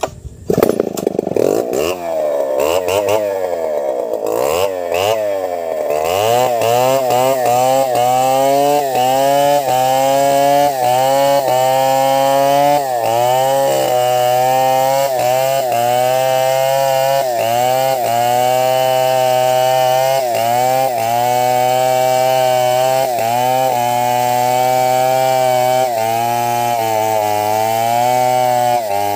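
Two-stroke chainsaw cutting through a felled log. For about the first six seconds the engine revs up and down unevenly. After that it runs steadily at high revs, its pitch dipping briefly every second or so as the chain bites into the wood.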